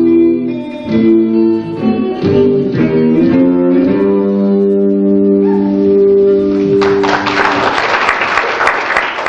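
Closing music led by guitar, a run of notes ending on a long held chord. Audience applause breaks out about seven seconds in, over the last of the music.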